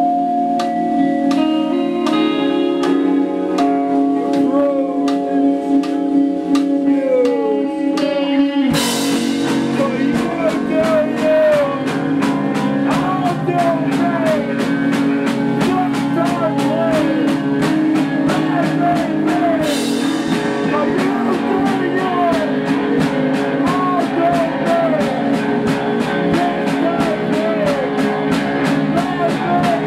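Rock band playing: electric guitar notes ring out on their own at first, then about nine seconds in the drums come in with a cymbal crash and the full band plays on over a steady beat, with bent guitar notes on top.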